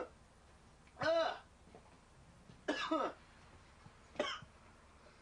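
A man coughing three times, about a second and a half apart: a rough, voiced cough as he reacts to being sprayed with pepper gel.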